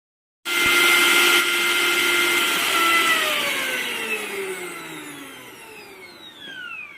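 Preethi Crown 500-watt mixer grinder motor running at full speed with a high whine, cutting in suddenly half a second in. About three seconds in it starts winding down, its whine falling steadily in pitch and fading.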